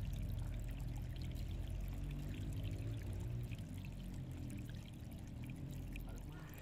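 Water pouring and splashing steadily into a koi pond, a continuous rushing wash that fades slightly.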